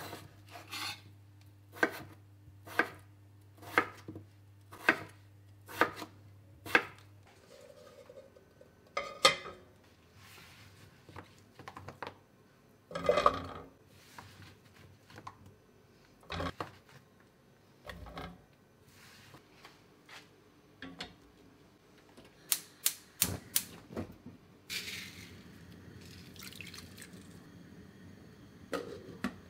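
A knife chopping peeled potatoes on a wooden cutting board, about one stroke a second for the first several seconds. Then potato pieces knock and splash as they are dropped into a steel pot of water, the loudest clatter about halfway through. Near the end comes a quick run of clicks and a short hiss of salt poured into the pot.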